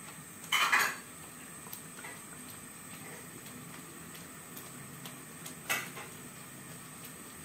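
Metal spatula scraping against a wok while stirring blended coconut and spice paste. There is a longer scrape about half a second in and a shorter one near six seconds in, with a few faint clinks, over a faint steady hiss.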